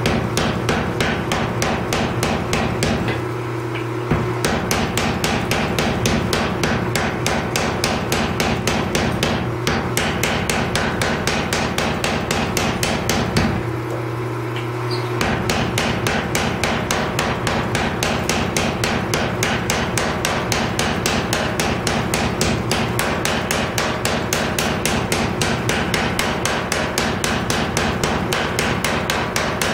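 Power hammer striking a glowing Damascus steel billet in a rapid, even run of blows, several a second. The blows stop twice for a second or so, about 3 s in and near the middle, leaving only the steady hum of the hammer's motor.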